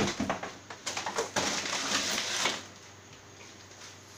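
A cardboard box holding a shrink-wrapped RC crawler being handled and shifted on a wooden desk. It opens with a sharp knock, then crackling clicks, then about a second of dense rustling and scraping that stops abruptly, leaving quiet.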